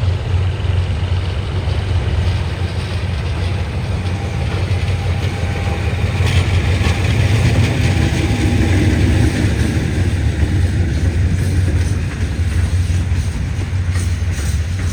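A train running by with a steady low rumble that swells a little in the middle, and a few sharp clicks near the end.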